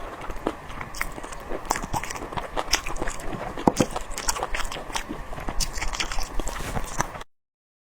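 Close-miked chewing and biting of spicy boneless chicken feet, with many small sharp wet clicks and crunches. It cuts off suddenly near the end.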